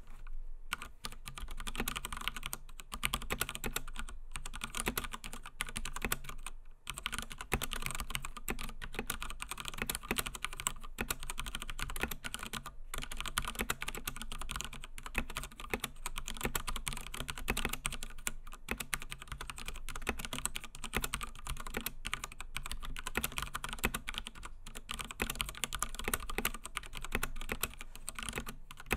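Continuous typing on an Akko 3087 v2 Silent mechanical keyboard with silent Akko (Huano) Pink switches, a dense run of muted keystrokes with a short pause about 7 s in. The case bottom is unfilled and hollow, which the reviewer says can be heard in the typing sound.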